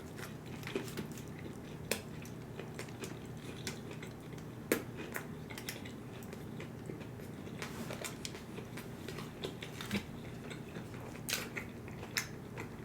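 A man biting into and chewing a soft bun sandwich with a chicken tender, close to the microphone: wet mouth clicks and small crackles at an irregular pace, with a few sharper clicks.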